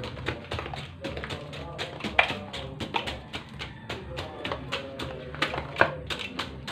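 Rapid, irregular taps and clicks of a small metal pick or blade chopping into crushed ice in a metal tub, several strikes a second.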